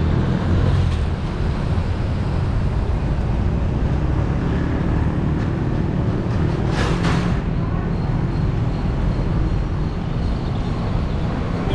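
City street traffic noise: a steady low rumble of vehicles, with a brief hiss about seven seconds in.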